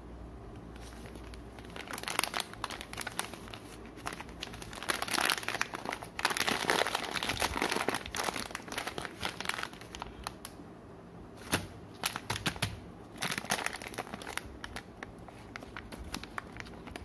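A plastic coffee refill pouch crinkling in the hands as it is held and turned over, in irregular bursts of rustling.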